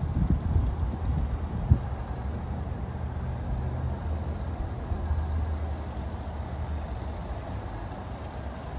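A vehicle engine idling with a steady low hum, with wind buffeting the microphone and one short knock in the first two seconds.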